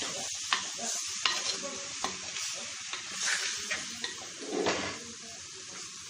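Raw chicken pieces sizzling in hot masala in a clay pot as a metal spoon stirs them, with several scrapes and knocks of the spoon against the pot.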